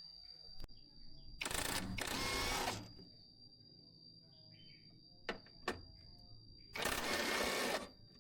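Two loud bursts of hissing, the first about a second and a half long and the second about a second, with a few sharp clicks between them.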